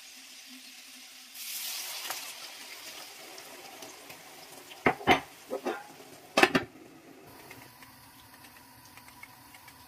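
A brief sizzling hiss as liquid hits the hot electric griddle pan of dumplings, followed a few seconds later by several loud, sharp clacks of cookware.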